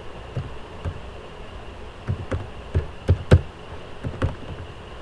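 Computer keyboard keystrokes as letters are typed: about eight separate, uneven clicks, the loudest a little over three seconds in.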